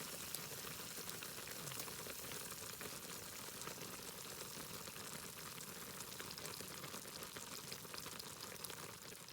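Sukiyaki sizzling and simmering in a pan over a campfire, a steady hiss with fine crackling that fades out at the very end.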